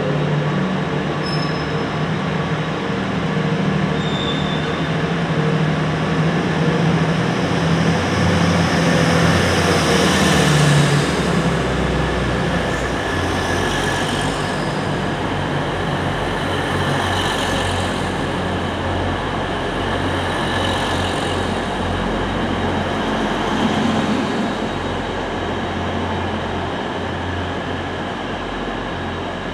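Grand Central Class 180 diesel multiple unit pulling out of the station, its underfloor diesel engines running as the coaches pass close by. A steady engine hum gives way about eleven seconds in to a deeper rumble of engines and wheels, which fades slightly near the end.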